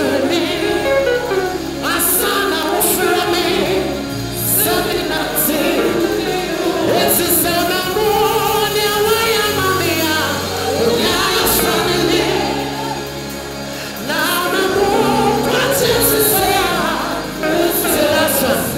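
A man singing a gospel song into a handheld microphone over band music, with a steady bass line and regular cymbal hits underneath.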